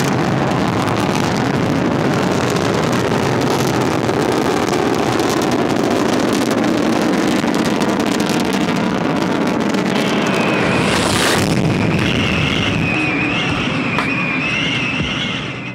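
Rocket launch: the engines' loud, steady rumble, with a wavering high whistle joining about ten seconds in.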